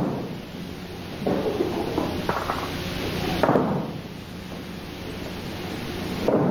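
Aikido breakfalls: several dull thuds of bodies landing on the mat, about a second apart, then a lull and one more near the end, over a steady low hum.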